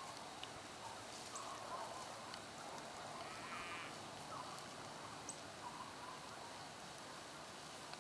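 Faint open-pasture ambience: a steady light hiss with scattered short, high bird chirps and one brief buzzy call near the middle.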